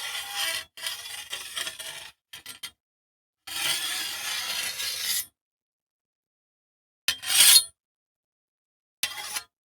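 Metal knife blades sliding and scraping, in a series of separate takes: a rasp that runs on from before, a longer scrape of about a second, two quick flicks, a scrape of nearly two seconds, then a short sharp slide about seven seconds in that is the loudest, and a brief last one near the end, each cut off to silence.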